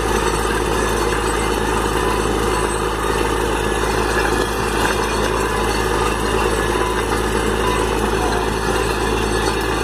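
Borewell drilling rig's engine running steadily under load, with water blown up out of the borehole gushing and splashing onto the ground.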